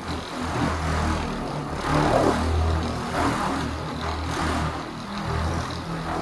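Electric paint polisher running a buff pad over car paint to cut down orange peel: a steady motor hum that swells roughly once a second as the pad is worked across the panel.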